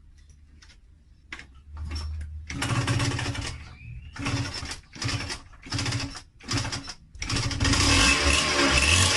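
Yamaha DTR125 two-stroke engine being started: a few faint clicks, then it fires in several short bursts with pauses between, and about seven seconds in it catches and keeps running.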